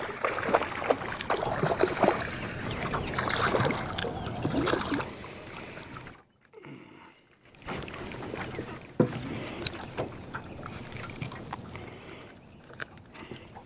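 Small waves lapping and sloshing against a fishing boat's hull, with scattered sharp clicks and knocks from the rod and reel as a fish is reeled in. The sound drops out briefly about six seconds in.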